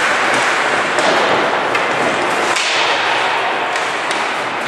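Ice hockey play in an indoor rink: a steady scraping hiss of skate blades on the ice, with a few sharp clacks of sticks and puck.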